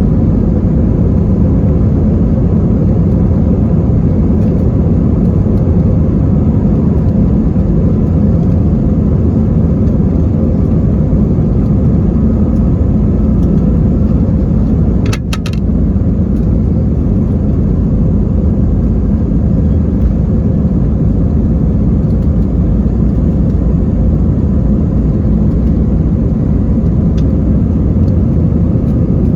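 Cabin noise inside an Airbus A320-232 with its IAE V2500 jet engines running: a loud, steady low rumble. A brief click or knock comes about halfway through.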